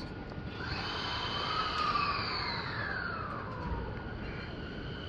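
JR 209 series electric commuter train pulling away from the platform, its traction motors and inverter whining in several tones, some of them gliding downward in pitch.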